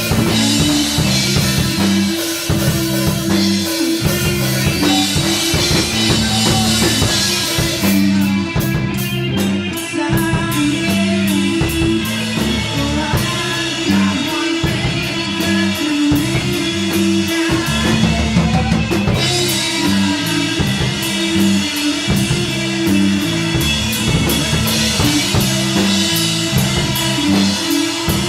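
Rock music played on drum kit, bass and electric guitar, with a steady beat throughout.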